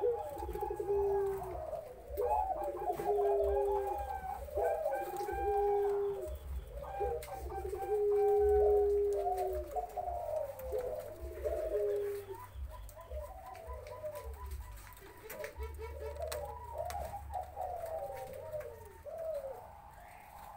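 Several caged zebra doves cooing over one another: long, steady low coos alternate with rapid trilled coos. Later the calls turn to quicker, higher repeated notes and fade near the end.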